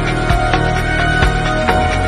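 Background music with a steady beat of about two strikes a second over held tones.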